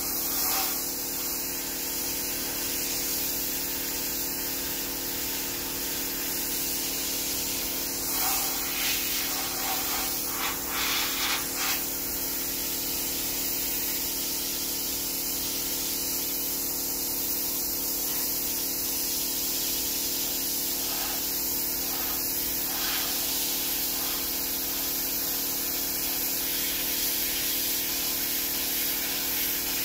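Sandblaster spraying abrasive media with compressed air against a rusty steel pickup frame: a steady, loud hiss of air and grit, with a few brief surges about 8 to 12 seconds in.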